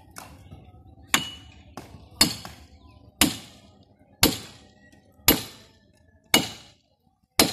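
Axe chopping into the base of a standing tree trunk: seven even strikes about one a second, each sharp and dying away quickly.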